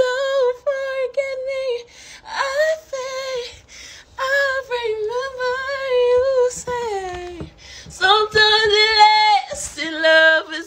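A woman singing alone, unaccompanied, in long held notes with short pauses for breath.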